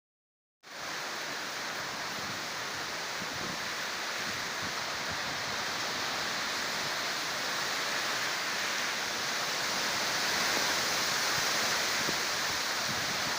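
Heavy rain and wind of a tropical storm, a steady dense hiss that starts abruptly about half a second in.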